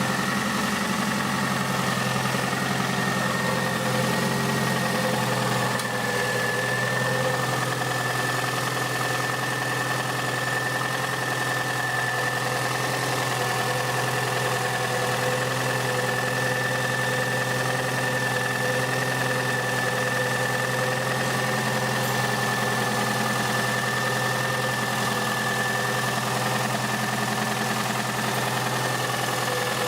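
Toyota Highlander's 2.4-litre 2AZ-FE four-cylinder engine idling steadily. The engine has a knock in the area of cylinders 3–4, which the mechanics put down to a piston pin knock in the third cylinder.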